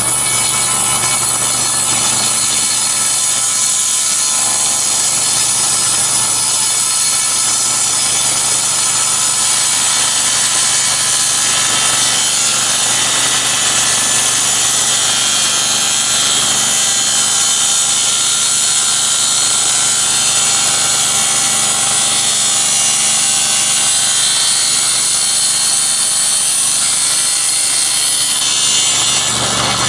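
Table saw blade cutting through an aluminum door extrusion, a loud, steady high-pitched sawing that lasts nearly the whole time and gives way to the saw running free near the end.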